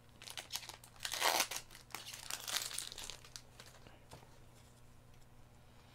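Foil trading-card booster-pack wrapper crinkling and tearing as it is opened and handled, in a run of crackles loudest a little over a second in and dying away by about three seconds.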